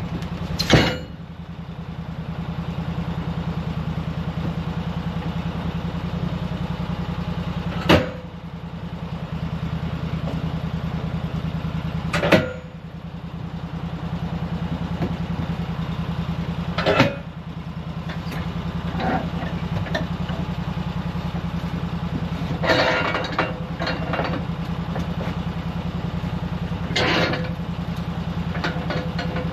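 Sawmill engine idling steadily, broken by about five sharp knocks several seconds apart and a short spell of clattering a little past the middle.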